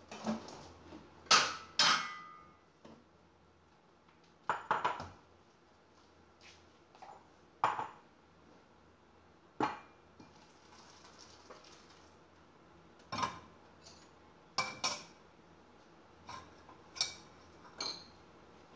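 Dishes and cooking utensils being handled on a kitchen counter: a dozen or so separate clinks and knocks spread out over the stretch, a couple of them with a short ring.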